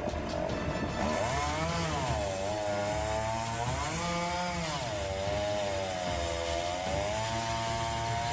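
Two-stroke chainsaw running while cutting wood, its engine pitch dipping and rising again several times as the load on the chain changes.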